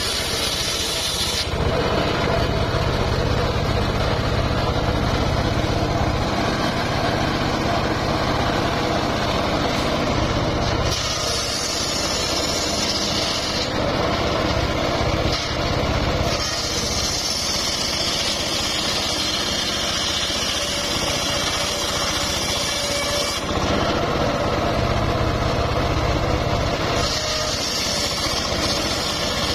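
Homemade circular saw bench ripping timber lengthwise: the large blade hisses through the wood in several long passes. Between the passes the machine runs on with a lower, steadier hum while the blade spins free.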